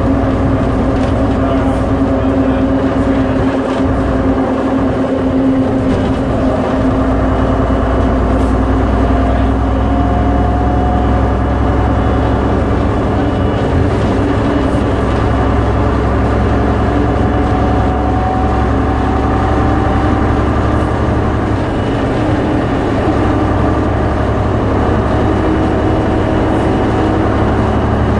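MCW Metrobus double-decker running on the road, heard from inside the passenger deck: a steady engine and driveline drone, with a whine that slowly rises in pitch partway through.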